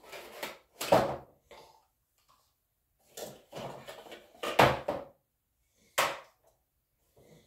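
Cardboard box and plastic lamp parts being handled while a toy lamp is unpacked: rustling, scraping and knocks in short bouts, loudest about a second in, with a sharp click at about six seconds.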